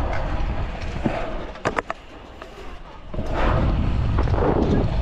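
Stunt scooter wheels rolling on a concrete skatepark surface, with a few sharp clacks a little after one second in. The rolling noise drops away for about a second near the middle, then comes back loud.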